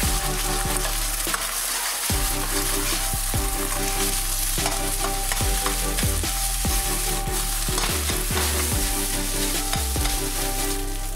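Egg and rice sizzling hard in hot oil in a wok over the highest heat, stirred, scraped and pressed with a metal ladle, with repeated short knocks of the ladle against the wok.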